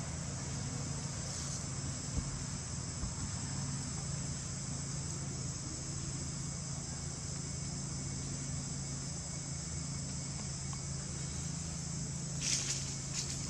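Steady high-pitched chorus of insects from the surrounding forest, with a brief scuffing sound near the end.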